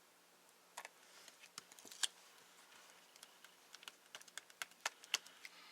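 Light scattered clicks and taps of cardstock being handled and pressed down, as a paper cut-out is stuck onto a card; the sharpest tap comes about two seconds in, with quicker small taps in the second half.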